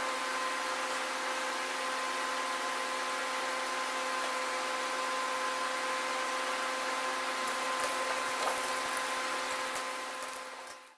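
Steady hum and rushing air of an electric fan motor running in a kitchen, with a few faint light clicks near the end.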